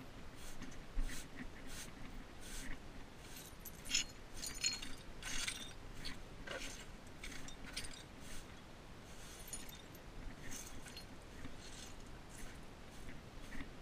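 Footsteps on a concrete sidewalk with a light metallic jingle, densest around the middle.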